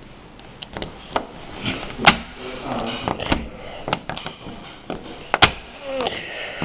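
A screwdriver prying at the plastic caps of a twisty puzzle cube, giving irregular sharp plastic clicks and knocks, the loudest about two seconds in and about five and a half seconds in.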